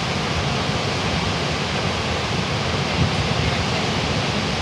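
Steady rushing of a large waterfall, with wind buffeting the microphone and adding a fluttering low rumble.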